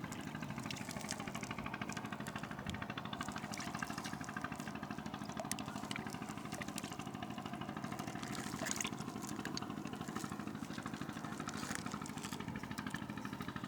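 A small engine running steadily at a low, even pulse, with a few light clicks over it.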